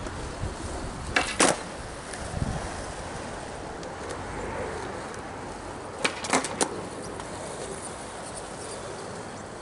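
Skateboard on a hard tennis court: wheels rolling with a low rumble, and sharp clacks of the board striking the court, twice about a second in and three times around six seconds in.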